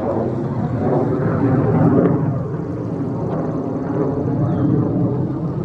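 A loud, fast airplane passing overhead: a steady, continuous rumble of aircraft engine noise.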